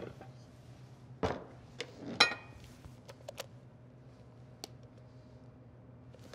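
A stand-mixer bowl being knocked loose from its base and lifted off, with sharp knocks and one louder ringing clink about two seconds in. Then faint ticks as a spatula scrapes the pound-cake batter out of the bowl into a glass loaf pan.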